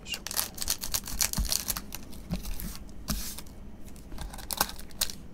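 2023 Topps Japan Edition baseball card packs crinkling and rustling as they are handled, their plastic wrappers giving a quick run of crackles for about three seconds, then sparser ticks.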